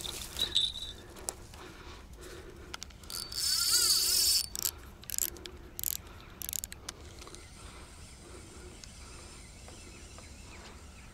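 Dry grass crunching underfoot, then a cast with a spinning rod: a hissing rush of line running off the reel spool for about a second, followed by a few clicks from the reel.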